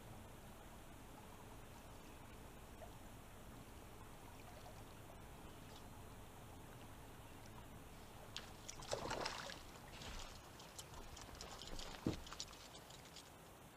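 Small spotted bass splashing at the surface as it is reeled up and swung out of the water, about nine seconds in, after a stretch of faint steady background. A few light clicks and a sharp knock follow as the fish and tackle are handled.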